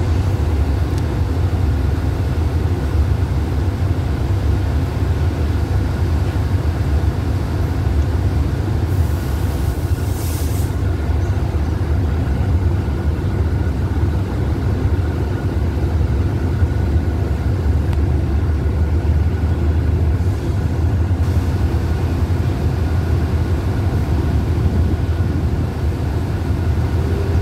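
Alsthom diesel-electric locomotive idling at a standstill, a steady low engine rumble, with a brief high hiss about nine seconds in.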